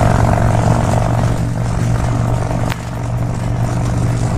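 Harley-Davidson Street Bob's V-twin engine running steadily at highway cruising speed, with wind rushing over the microphone. Two brief clicks, one at the start and one near three seconds in.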